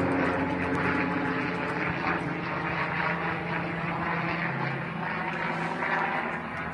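Low-flying airplane's engines droning overhead, a steady hum that slowly fades as the plane moves away.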